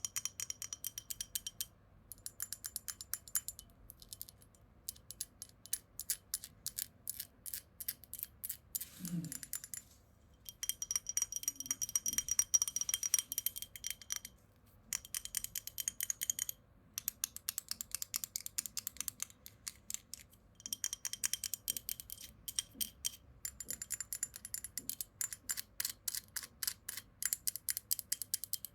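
Rapid light tapping on a small hard object, with a faint high ringing note. It comes in fast runs of clicks broken by short pauses.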